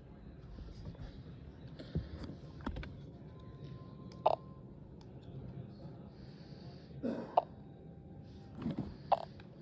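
Scattered short clicks and knocks of hard plastic and a small screwdriver being handled, with the loudest ones about four, seven and nine seconds in.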